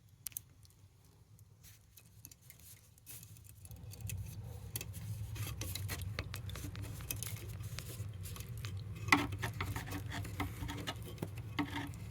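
Small clicks, taps and scraping as a stripped wire is worked through an electrical box by hand, busier from about four seconds in, with one sharper click about nine seconds in.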